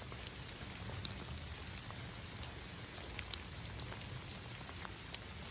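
Steady rain, an even hiss with many scattered drop ticks.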